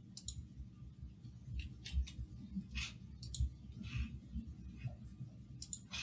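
Faint, irregular clicks of computer keyboard keys being typed, over a low steady room hum.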